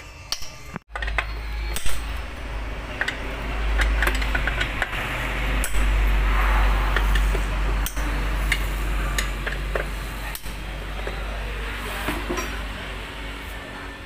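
Metal hand tools clinking, scraping and knocking against the engine block and the oil strainer as a wrench loosens the strainer's bolts, over a steady low rumble.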